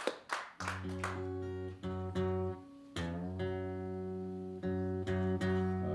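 Acoustic guitar being tuned by ear: the same low note plucked again and again and left to ring, its pitch shifting slightly about three seconds in as a tuning peg is turned. A last few claps of applause are heard at the start.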